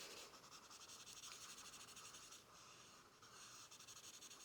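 Faint, scratchy rubbing of a drawing tool on paper, uneven and continuous, easing off briefly twice near the end.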